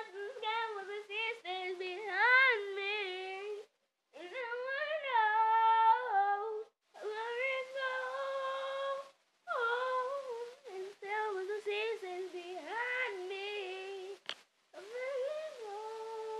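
A young girl singing wordlessly in a high voice: long held notes that slide and waver in pitch, in several phrases with short breaks between them.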